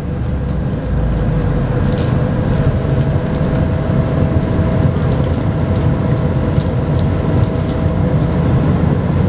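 Las Vegas Monorail train rumbling and slowing as it pulls into a station, heard from inside the car. A steady whine sets in about two and a half seconds in and stops near the end, with a few light clicks scattered through.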